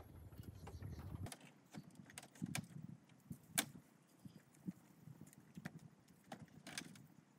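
Faint, irregular hollow knocks and clacks of wooden poles and bamboo being handled on a bamboo raft as a shelter frame is put together, the loudest about three and a half seconds in.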